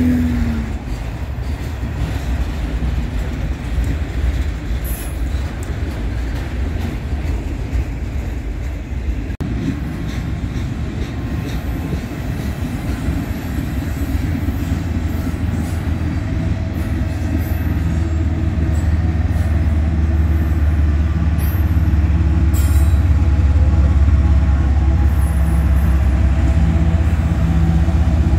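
Freight train rolling past: the steady rumble and clatter of cars' wheels on the rails. Over the second half a Union Pacific diesel locomotive running mid-train as distributed power comes up, its low steady engine drone growing louder.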